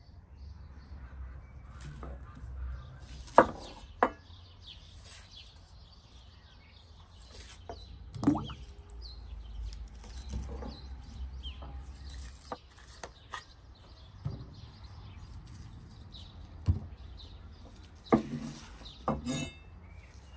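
Birds chirping on and off, with several sharp knocks and clatters spread through, the loudest a few seconds in.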